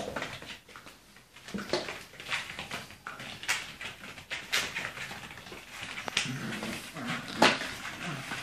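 Puppies playing, giving short yips and whimpers, a string of brief sounds one after another.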